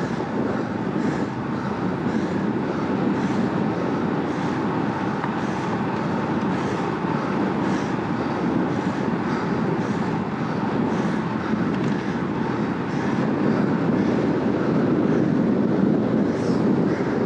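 Steady wind rush over the camera microphone and road tyres humming on asphalt from a road bike ridden at about 38 km/h, with a faint hiss repeating about twice a second.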